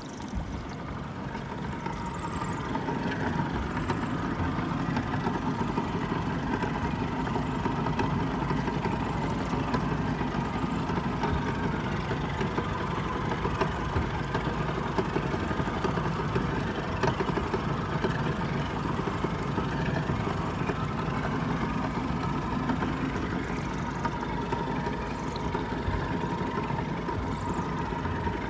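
2004 Yamaha F150 four-stroke outboard motor running steadily, with the knocking sound that points to an internal engine fault.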